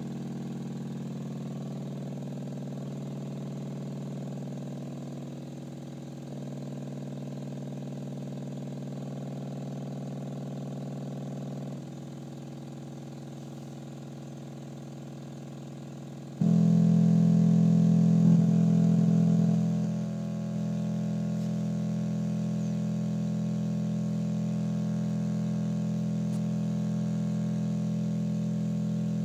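Steady electronic drone tone with a stack of overtones, the kind of signal played through a speaker to vibrate a cymatics plate or dish into patterns. It shifts to a new tone every few seconds. About halfway through it jumps much louder, then settles a little lower a few seconds later.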